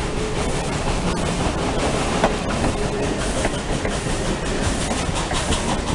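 Passenger cars of an excursion train rolling past close by: a steady, loud rumble of steel wheels on rail, broken by repeated clicks as the wheels cross rail joints.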